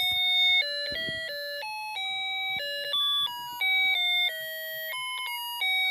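A Snap Circuits alarm circuit plays an electronic tune through its speaker. It runs as a string of beeping notes, about three a second, stepping up and down in pitch like a doorbell melody.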